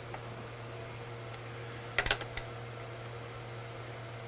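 A short cluster of three or four sharp metallic clicks about two seconds in, from handling the Dillon 650 reloading press while the taper crimp die is adjusted and locked in place, over a steady low hum.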